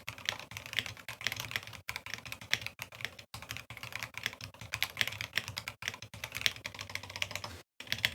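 Typing at a normal pace on an Akko Mod007 aluminium-case mechanical keyboard with Gateron Phantom Red linear switches: a quick, uneven stream of key clacks. The case is damped inside with butyl sheet and a force-break mod; the typing breaks off briefly near the end.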